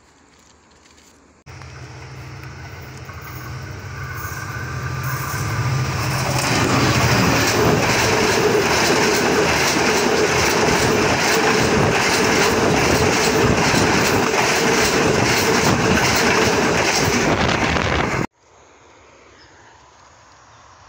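Passenger train passing close by, its wheels clattering over the rails. The sound starts suddenly about a second and a half in, builds over the next few seconds to a loud steady clatter, and cuts off abruptly near the end.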